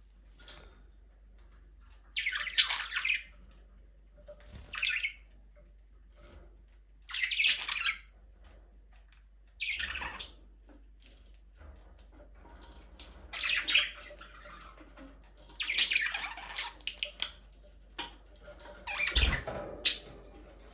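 Budgerigars calling in bursts of about a second, about seven times, with quiet gaps between.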